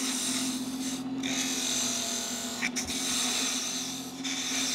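Wood lathe running with a steady hum while a hand-held turning tool cuts a spinning birch blank, a dry scraping hiss of shavings coming off. The cutting sound breaks off briefly a couple of times as the tool comes off the wood.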